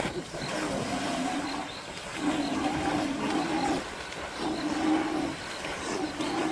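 A voice giving four long cries in a row, each held at a steady pitch for about a second, during a lion attack on a waterbuck in the water.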